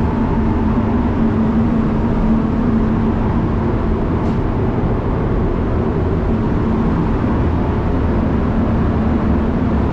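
Spray booth fans running: a steady rush of moving air with a constant low hum.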